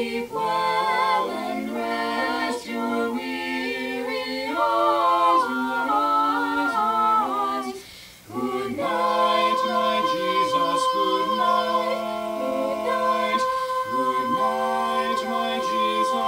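A cappella mixed vocal quartet (soprano, alto, tenor and bass) singing in four-part harmony, with no instruments. The voices move through held chords, break off briefly about halfway, then sustain one long chord.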